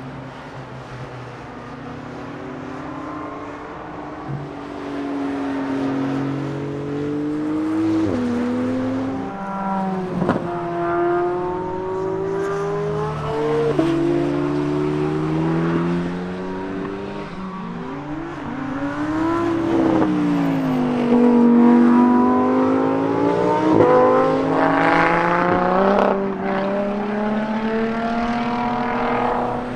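Sports cars on a race circuit accelerating out of a corner one after another, among them an Ariel Atom and a red Corvette. The engines climb in pitch and drop back at quick upshifts, again and again, with the cars overlapping and getting louder in the second half.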